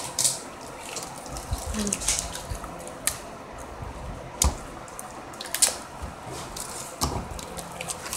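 A string of sharp taps and knocks, roughly one every second or so, with short rustles in between: hands and objects handled on a table close to the microphone.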